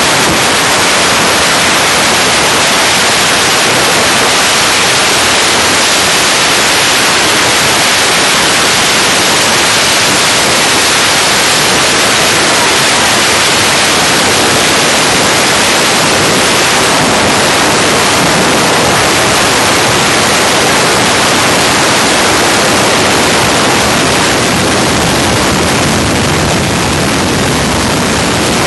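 Loud, steady rush of wind and road noise hitting a phone microphone moving at highway speed, with no engine note standing out. It eases slightly near the end.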